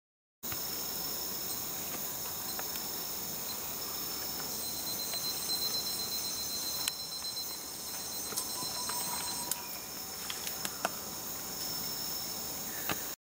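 Tropical rainforest insect chorus: several steady high-pitched trills and whines layered over a hiss, with a few sharp clicks and a brief lower note about nine seconds in. It starts and cuts off abruptly.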